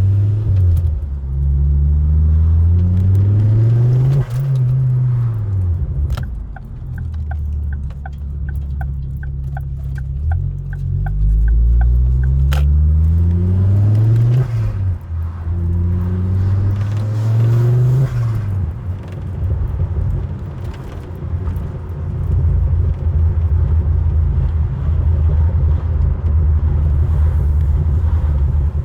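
Ford Focus ST engine pulling through the gears on a road test. The engine note climbs and drops sharply at each gear change, about 4, 14 and 18 seconds in, then holds steady at cruising speed. A run of evenly spaced ticks comes between about 6 and 11 seconds.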